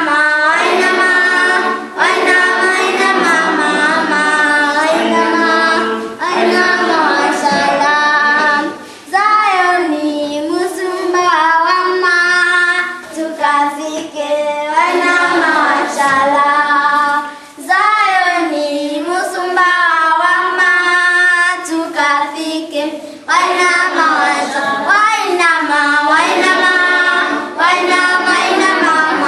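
A group of children singing a song together, in phrases with short breaks between them.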